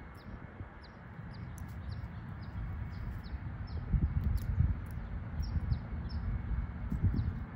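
Small birds chirping, a string of short falling chirps repeated every fraction of a second, over a low rumble that swells about halfway through and again near the end. There are a few faint sharp clicks as well.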